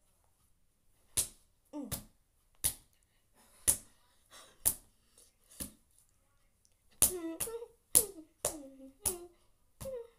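Glitter slime squeezed and worked by hand, giving about a dozen sharp pops and clicks as air pockets burst, roughly one a second and coming faster in the last few seconds; some pops have a short pitched ring.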